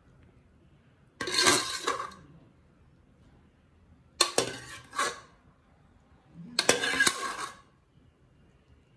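Metal ladle clinking and scraping against metal cooking pots in three short bouts, each about a second long, as food is scooped from one pot and served into another.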